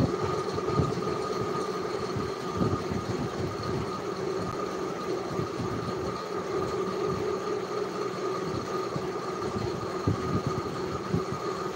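Steady mechanical hum and noise with a few held tones and irregular low rumbling underneath.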